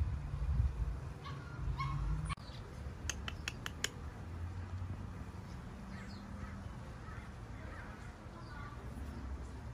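Birds chirping in short calls over a low rumble, with a quick run of about five sharp clicks between three and four seconds in.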